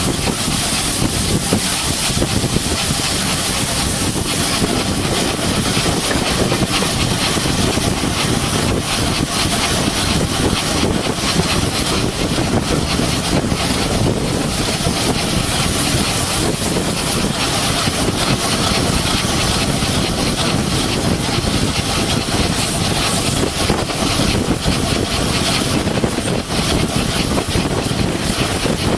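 A train running along the line: a steady, loud rumble and rush of noise that never breaks.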